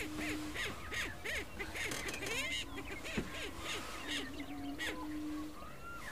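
A lek chorus of male greater prairie chickens: low, steady booming hoots, each held up to about a second, overlapped by rapid cackling and short whooping calls from several birds.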